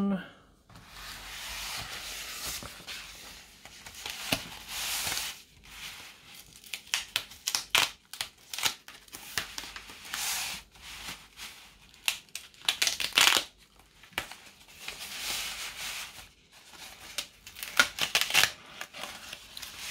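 Embossed paper mailer being torn open and handled: irregular tearing, crinkling and rustling of paper, with the sharpest rips about ten, thirteen and eighteen seconds in.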